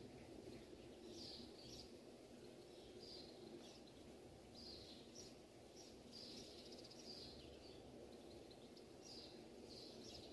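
Near silence: faint background noise with faint, short bird-like chirps recurring about once a second.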